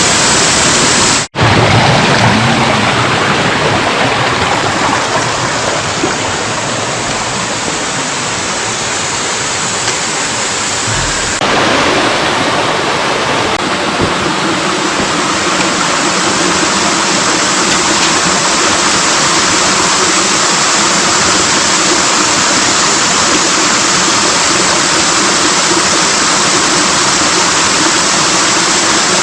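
Mountain stream rushing loudly over rocks in a steady roar of falling water, broken for an instant about a second in.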